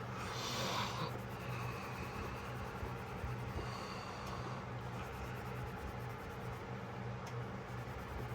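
A short breathy sniff just after the start, then faint rubbing and handling noises of hand-cleaning a pocketknife, over a steady low hum.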